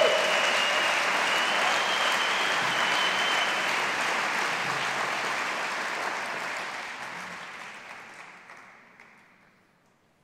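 Audience applauding, with a long, high, steady whistle over the first few seconds. The applause dies away and stops about nine seconds in.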